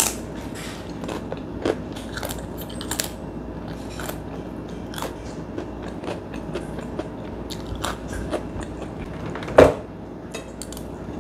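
Crisp kerupuk crackers being bitten and chewed close up, a string of short crunches and cracks. One louder knock about nine and a half seconds in.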